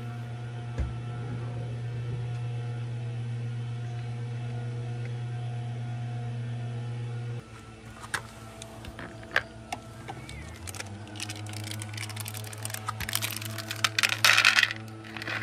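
Grass-cutting machine running with a steady drone. The drone drops out about seven seconds in and returns a little lower about three seconds later. Scattered sharp clicks follow, then a loud rasping burst near the end.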